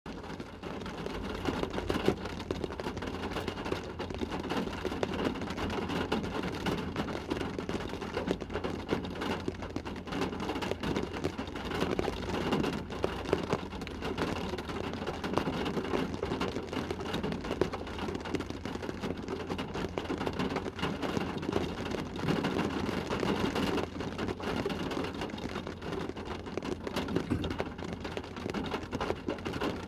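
A rain shower falling on a car, heard from inside the cabin: a dense, steady patter of many small drop hits over a low, even rumble.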